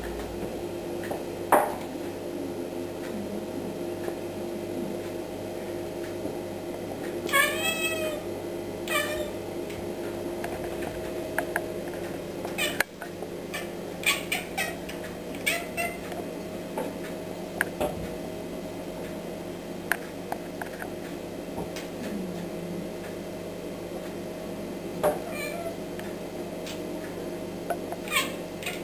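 Cat chattering and chirping up at a fly on the ceiling: the prey-watching sound a cat makes at a fly or bird it has spotted. A dozen or so brief chirps and meows come with pauses between them.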